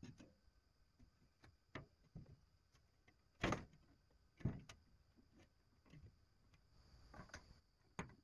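Faint, scattered knocks and bumps of wooden boards being handled and set into a timber gable frame, with two louder knocks about a second apart in the middle.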